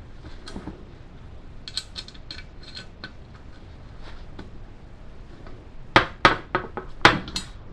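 Light metal clicks and clinks from an Allen key working the bolts of an office chair base, with a quick run of about six sharper, louder clinks near the end.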